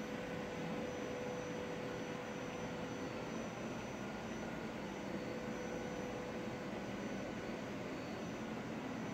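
Steady outdoor background noise: an even rumbling hiss with a faint constant hum running through it.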